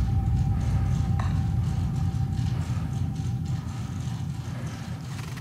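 Low, steady rumbling drone with a faint high tone that fades out in the first couple of seconds, the whole slowly growing quieter toward the end.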